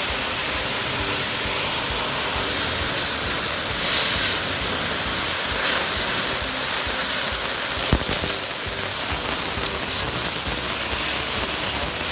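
KOKORO high-pressure washer blasting a narrow jet of water from a zero-degree nozzle onto brick pavers, making a steady hiss. There is one brief tick about eight seconds in.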